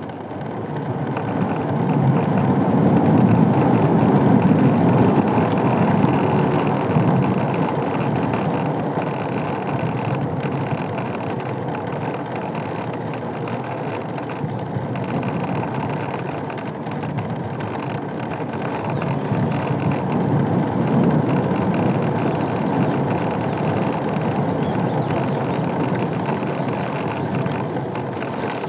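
Steady wind and road rush from an Ola S1 electric scooter being ridden, picked up on a handheld mic. It builds over the first couple of seconds, eases off, and swells again near the end. No dashboard rattle is heard: the noise from the broken headlight-mount panel has been cured by a replacement part.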